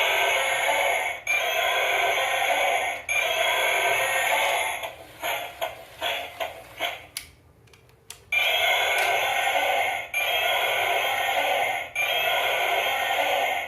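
A battery-operated toy's electronic sound chip playing the same short tinny phrase over and over, three times, then a few seconds of clicks and clatter, then three more times.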